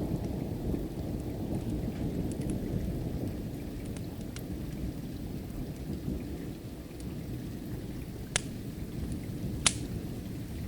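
Steady rain with a low rumble of distant thunder, and a wood fire crackling with scattered sharp pops, the two loudest near the end.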